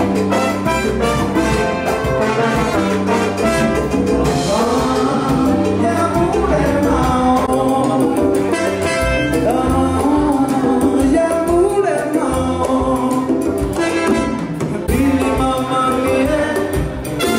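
Live salsa band playing: a horn section of trumpet, trombone and alto saxophone over congas, drum kit, electric bass and guitar.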